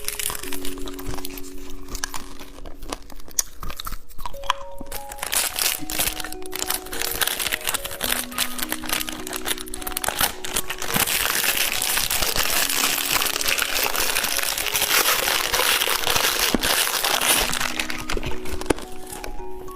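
Plastic candy wrappers crinkling and crackling, with crunching, over a light background melody. The crinkling is thickest in the second half.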